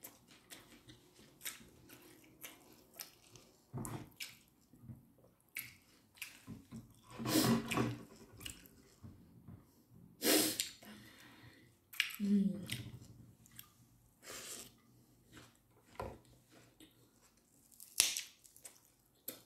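A person eating by hand: chewing and smacking her lips over fried rice and tomato, with scattered small wet clicks and a few louder mouth sounds.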